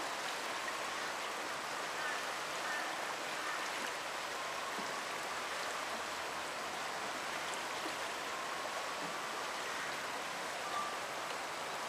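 Steady rushing of a fast-flowing flooded river's current.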